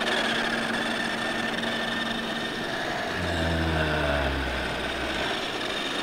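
Motor and gears of a toy-grade 1/10-scale RC Mustang whining as it runs at full speed. About three seconds in, a lower hum joins for two seconds and falls slightly in pitch.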